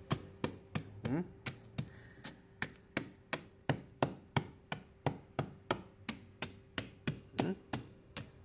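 Hammer repeatedly striking charred bones in a bed of wood ash, crushing them to powder; quick, even blows about three a second.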